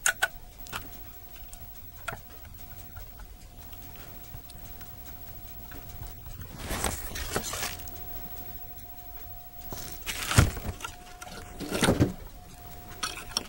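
A few light clicks near the start as jumper wires from a battery are touched to a relay's coil pins on a furnace control board. Then come rustles and handling of test leads and a multimeter around the middle and again near the end, over a faint steady high whine.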